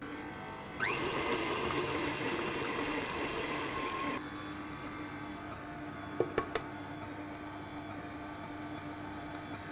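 KitchenAid Artisan stand mixer running with its flat beater, beating an egg into creamed butter and sugar in a steel bowl. It picks up speed with a rising whine about a second in, then about four seconds in drops abruptly to a lower, quieter steady hum, with two sharp clicks a little after six seconds.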